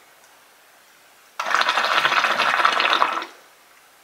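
Water in a portable hookah's base bubbling hard for about two seconds as smoke is drawn through it, starting about a second and a half in. It is a pull to get the freshly lit charcoal going.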